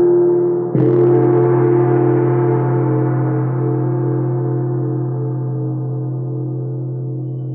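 A large struck metal percussion instrument with a gong-like ring: a deep tone with many overtones, struck again about a second in, then slowly fading while its tones waver and pulse.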